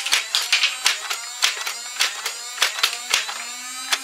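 Nerf Sabrewing's motorized flywheels spun up, holding a steady whine, while darts are fired in quick succession. The firing makes sharp clicks several times a second, mixed with darts striking the targets.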